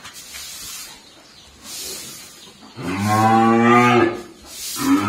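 Cattle mooing: two long, low moos, the second starting about a second after the first ends.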